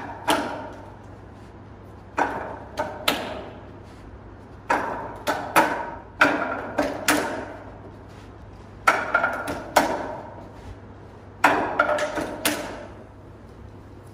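Wing Chun wooden dummy being struck: forearms and palms knocking against its wooden arms and trunk in quick groups of sharp, ringing clacks with short pauses between the sequences.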